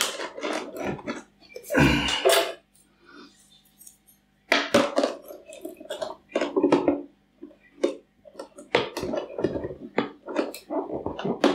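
Irregular clinks, taps and rustles of hands working inside a glass jar, pressing a plant into the substrate of a tarantula enclosure.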